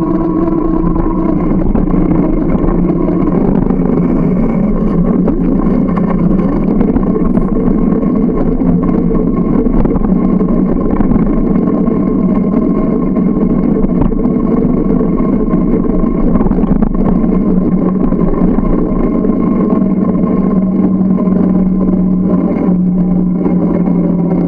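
Steady running hum and rush of a moving bicycle picked up by a camera mounted on the bike, with a humming tone that shifts lower a few seconds in.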